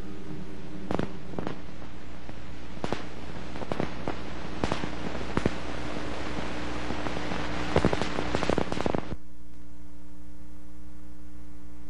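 Old film sound track running with no dialogue: steady hiss with scattered crackles and pops, which cuts off suddenly about nine seconds in, leaving a low steady hum.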